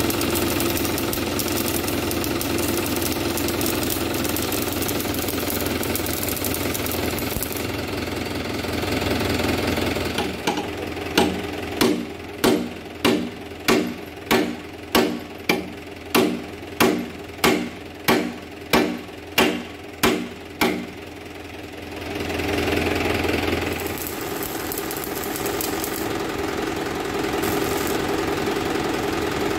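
Electric arc welding on a steel tractor cage wheel: a steady crackling hiss over a low electrical hum. About a third of the way in the welding stops and a regular series of knocks follows, about two a second for some ten seconds. The crackling arc then resumes.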